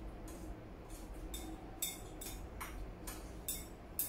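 Chopsticks clicking and scraping against porcelain bowls while two people eat rice and noodles: a string of short, light clicks, about two a second.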